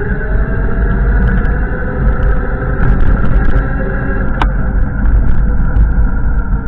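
Wind rumbling heavily on the microphone, with a vehicle engine humming underneath; one sharp click about four seconds in.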